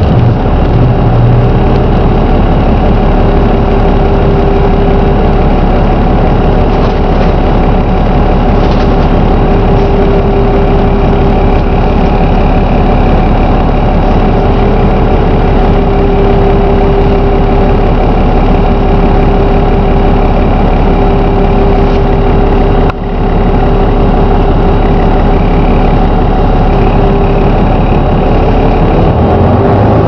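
Volvo B7RLE bus's 7-litre six-cylinder diesel engine idling steadily with the bus stationary, heard from inside the passenger saloon.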